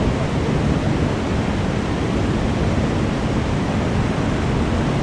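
Steady rush of fast-flowing river water, the river running high.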